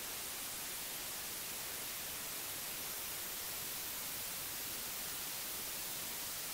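Television static: a steady hiss of white noise, brightest in the high end, with no change in level.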